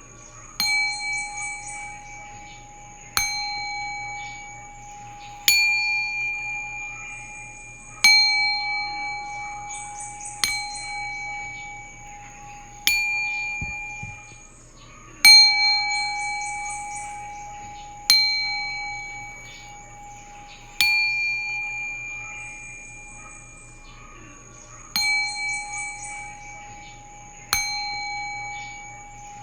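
Singing bowl struck about every two and a half seconds, some twelve times. Each strike rings out with a clear mid tone and higher overtones that slowly fade before the next.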